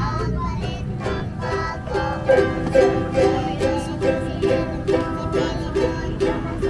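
Background music led by a plucked string instrument like a ukulele, playing a steady run of notes about two or three a second from about two seconds in, over a low background rumble.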